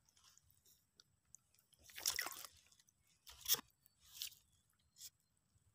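Four short bursts of water splashing and sloshing, the loudest about two seconds in.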